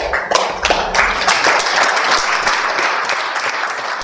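Audience applauding: dense clapping from a crowd, full and steady, easing a little near the end.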